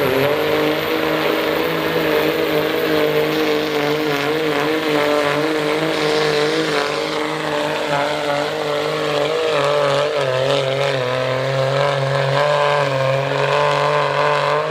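Diesel 4x4 pickup truck engine working hard under full load as it pulls a weight-transfer sled, its note held steady with slight wavering and a high whistle over it. The sound cuts off suddenly at the end.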